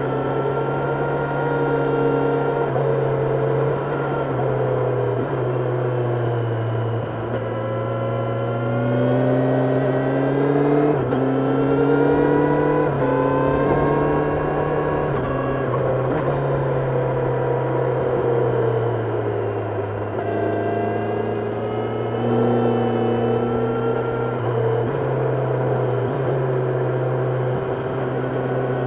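Kawasaki Ninja 1000SX inline-four engine running under way, its revs climbing and falling again and again, with several sudden jumps in pitch.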